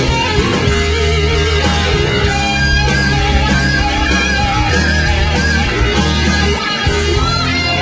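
Rock band playing live: electric guitar and drums with steady low bass notes, loud and continuous throughout.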